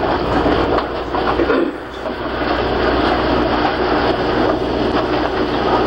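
Subway train running through an underground station: a steady, loud rush of wheel and rail noise with a low hum underneath.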